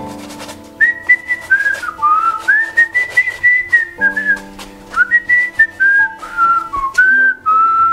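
A man whistling a tune, a single melody of held and sliding notes that starts about a second in, over background music of sustained chords.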